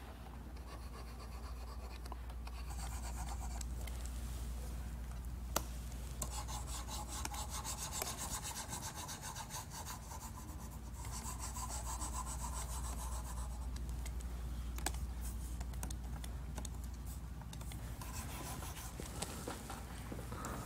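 Stylus nibs rubbing across the screens of Huion Kamvas GT-191 pen displays in long coloring strokes, with a couple of light clicks, over a steady low hum.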